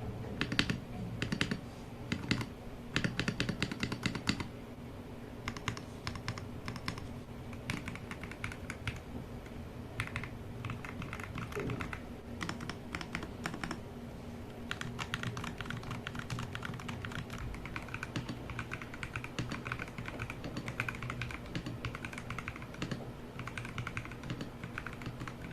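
Typing on a mechanical keyboard fitted with SA-profile Aifei ABS doubleshot keycaps. The keystrokes come in short runs with brief pauses at first, then as steady continuous typing for the second half.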